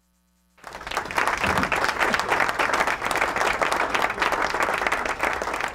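A congregation clapping and applauding, a dense steady patter of many hands that starts abruptly about half a second in.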